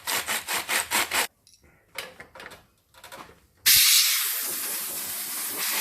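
Brush scrubbing quickly in short strokes, about eight a second, then after a quiet spell a sudden loud, steady hiss of an air hose blowing compressed air.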